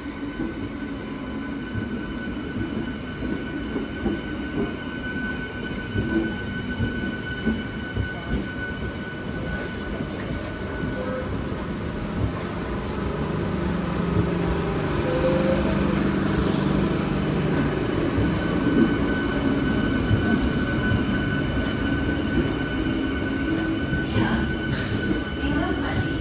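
Train moving at a railway platform: a continuous rumble of wheels on rails with a thin, steady high squeal, growing louder about halfway through.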